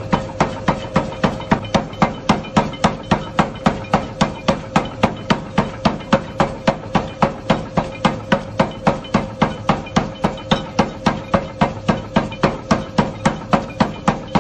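Power hammer striking a red-hot steel bar on the anvil in a fast, even rhythm of about three and a half blows a second, over the steady hum of the machine.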